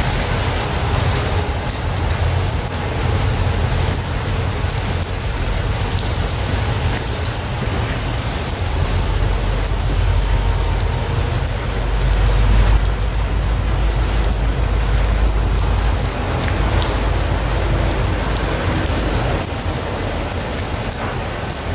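Freight train of empty intermodal well cars rolling past: a steady rumble of steel wheels on rail, with scattered light clicks and rattles.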